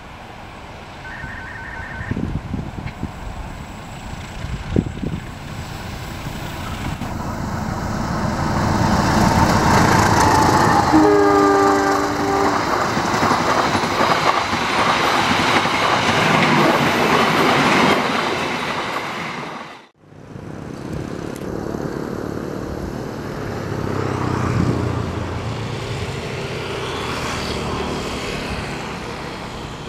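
Passenger train approaching and passing, its rumble and wheel clatter building to a peak, with one horn blast about eleven seconds in. The noise fades and cuts off suddenly about two-thirds of the way through, followed by a quieter, steady rumble.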